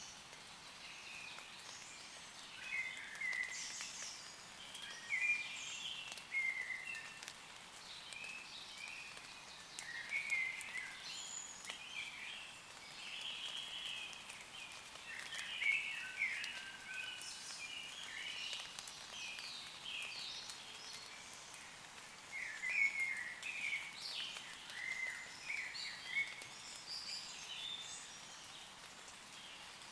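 Several woodland birds singing, with short chirping phrases overlapping all through, over a faint steady hiss of light rain on leaves.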